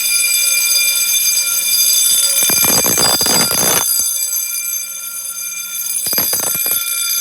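Edwards fire alarm horns and bells sounding continuously with a steady, buzzing alarm tone. A rushing noise is heard twice over it, about midway and near the end.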